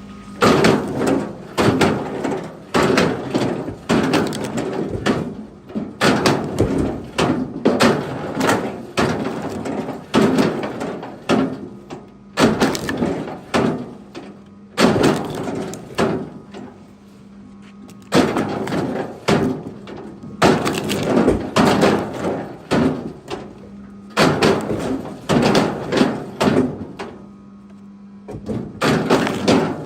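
Pieces of chopped wood being tossed again and again, knocking and clattering onto a pile in irregular bursts, with a faint steady hum underneath.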